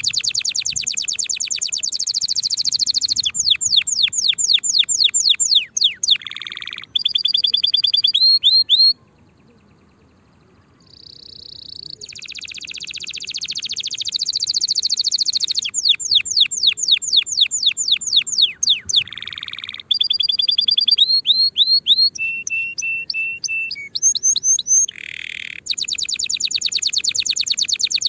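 Domestic canary singing: fast rolls of rapidly repeated notes that change speed and pitch from phrase to phrase, with a break of about two seconds near the middle before the song starts again.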